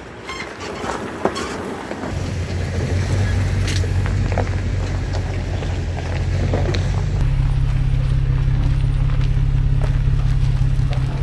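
A vehicle engine running with a steady low hum, which steps to a slightly different pitch about seven seconds in.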